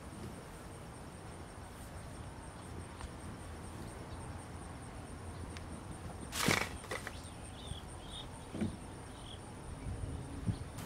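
Steady faint outdoor background with a short rattle a little past halfway, as PVC pipe fittings are handled in a plastic milk crate, followed by a couple of smaller knocks.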